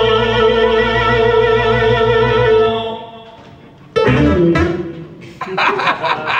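A man's voice holding a long sung note with vibrato over a sustained electronic-keyboard chord, fading away about three seconds in. Then a sudden vocal swoop sliding downward, and laughter near the end.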